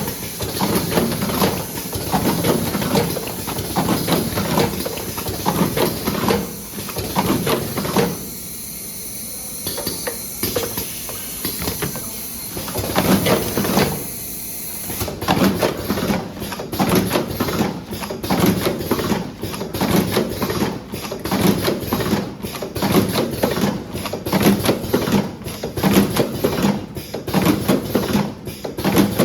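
Automatic cartoning machine running, with compressed-air hiss and irregular mechanical clacking.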